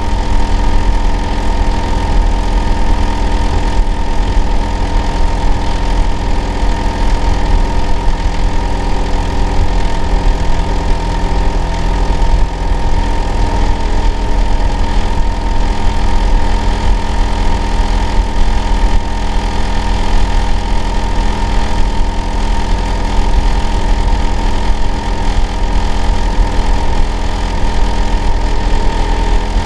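Hitachi air-conditioner outdoor unit running, a loud, steady drone with a deep rumble, several steady hum tones and a thin high whine. The uploader calls it an abnormal noise.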